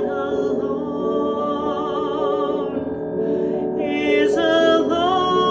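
A woman singing long held notes with a wavering vibrato over instrumental accompaniment, with a quick breath about three seconds in.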